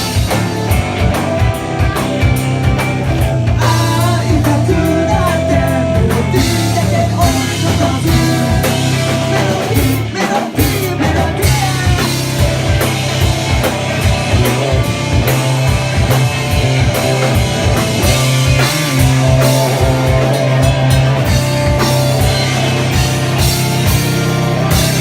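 Live rock band playing full-on, with drum kit, electric guitar and bass and some singing. The sound drops out briefly about ten seconds in.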